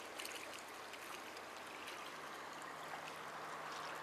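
Steady wash of seawater against shoreline rocks, with a few faint clicks.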